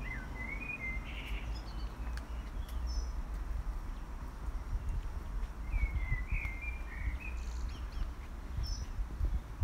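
Garden songbirds singing in short chirping phrases, one right at the start and another about six seconds in, with a few higher chirps between, over a steady low rumble.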